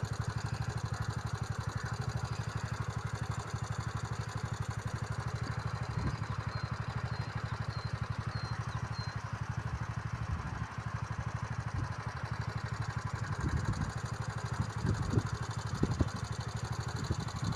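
An engine running steadily with a fast, even low throb, with a few louder low bumps near the end.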